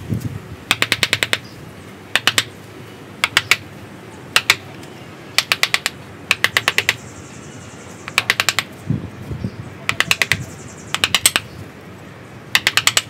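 Wooden mallet tapping a carving chisel into the wood of a bonsai trunk. The taps come in quick bursts of several light strikes, with short pauses between bursts.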